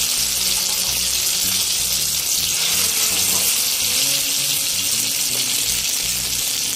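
Wet, water-ground jackfruit-seed paste frying in hot oil in a kadai: a loud, steady sizzle.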